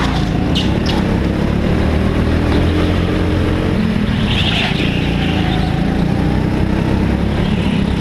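Go-kart engines running at racing speed, their pitch rising and falling with the throttle through the corners.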